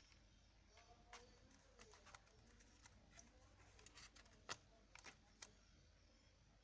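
Faint, scattered light taps and clicks from a kitten at play, loudest about four and a half seconds in, over a low steady room hum.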